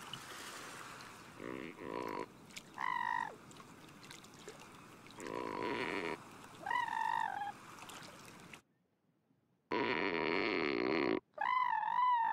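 Cartoon sound effects, three times over: each time a short buzzy croak is followed by a wavering, squeaky pitched call. The last pair is the loudest.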